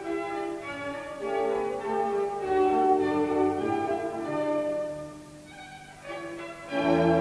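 Orchestral background music led by bowed strings, playing long held notes; it quietens briefly and then swells up again near the end.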